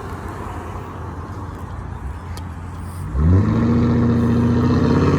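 Road traffic going by, then about three seconds in a loud, low vehicle horn starts with an upward swoop in pitch and is held as a long honk.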